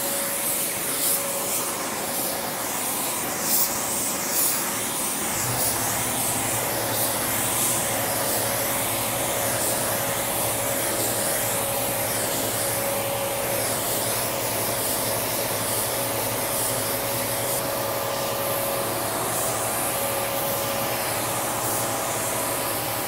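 Gravity-feed automotive spray gun hissing as it lays clear coat on a car's panels, the hiss swelling and fading with each pass, over the steady drone of the inflatable booth's blower fans. A low hum joins about five seconds in.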